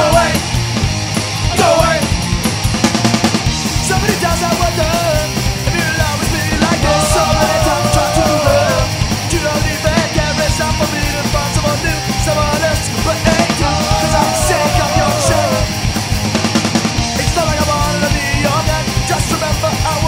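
Pop-punk band recording playing: fast drums, loud distorted electric guitars and bass.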